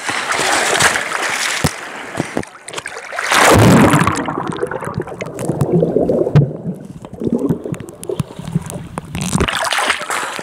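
Sea water sloshing and splashing against a camera's microphone at the surface. About three seconds in, it plunges under with a loud splash, and the sound turns muffled and low underwater. Near the end it breaks back through the surface.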